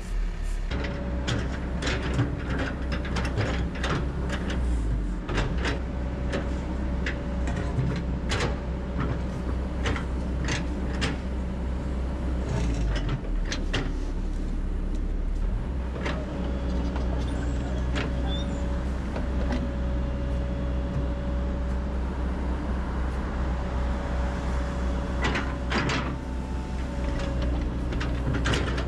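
Excavator running steadily at work, a low engine drone with a steady tone above it, broken by many scattered knocks and clanks as it handles boulders.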